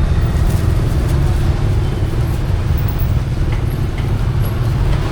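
Steady low rumble of passing road traffic and outdoor street noise.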